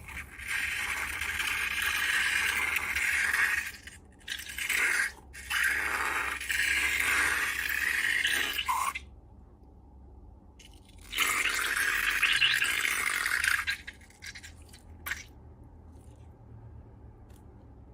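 Scraping noise in long stretches, with a few short breaks in the first half, a quieter gap, then another stretch of a couple of seconds, and a single sharp click near the end.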